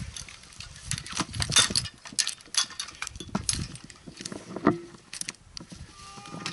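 Climbing gear clinking and jangling in irregular short clicks, with scrapes and knocks, as a tree climber moves on his rope against the trunk.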